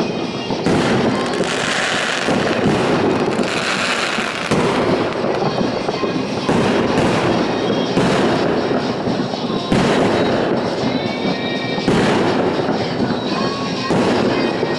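New Year's fireworks and firecrackers going off: continuous crackling and popping with a loud bang every two seconds or so.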